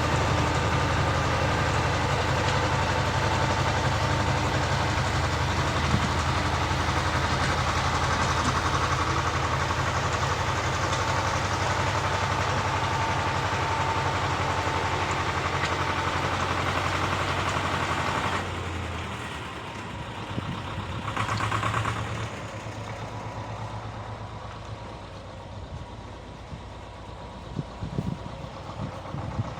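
Engine of a walk-behind rotary tiller running steadily under load, then about two-thirds of the way in dropping to a quieter, lower idle.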